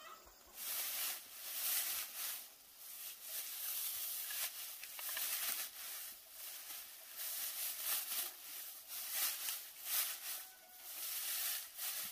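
Irregular rustling and scraping that swells and fades every second or so.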